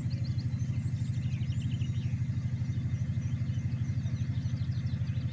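Generator set running steadily with an evenly pulsing low hum, with faint birdsong chirping above it.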